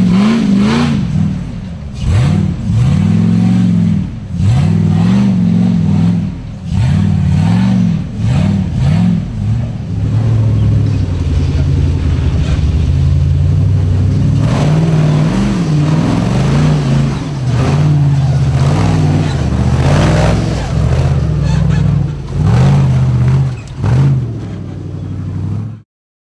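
Off-road rock buggy engines revving in repeated bursts, rising and falling in pitch every second or two, as the buggies crawl up a steep rock ledge under load. The sound cuts off suddenly near the end.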